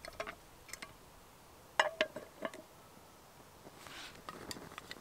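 Camping cookware clinking and knocking as it is handled: a few sharp metallic clinks, one with a brief ring, then a soft rustling noise near the end.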